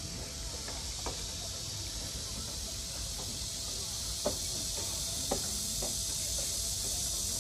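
A steady, high-pitched chorus of insects, with a few light knocks about a second in and twice more in the middle.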